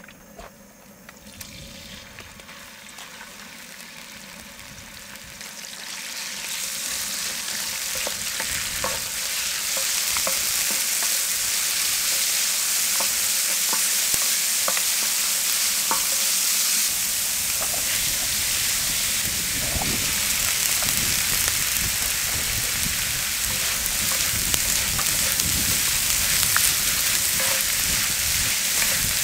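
Food frying and sizzling in a hot pan, stirred with a utensil that ticks against it now and then. The sizzle builds over the first several seconds, holds steady, and grows fuller about halfway through.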